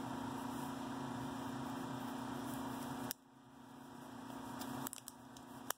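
A steady electric motor hum with a low buzz, which drops away suddenly about halfway through, and rustling as a nitrile glove is pulled onto a hand, with a few sharp snaps of the glove near the end.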